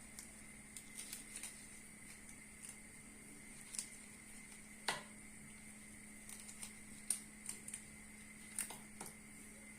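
Faint scattered taps and clicks as garlic-stuffed dried figs are handled and set into a couscoussier's steamer basket, the sharpest about five seconds in, over a steady faint hum.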